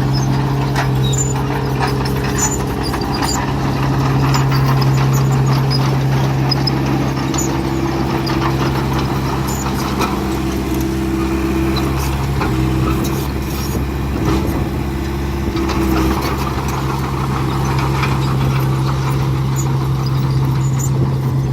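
Heavy construction machinery's diesel engines running steadily, a constant low hum with a higher engine tone that wavers slightly in pitch, over scattered clicks and rattles.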